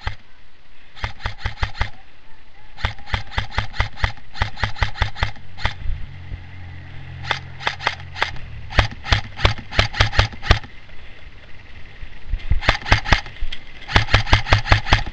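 Airsoft M4A1 electric rifle firing repeated strings of rapid shots, each string a quick run of sharp cracks over the gearbox's whine, with short pauses between strings. The firing is loudest near the end.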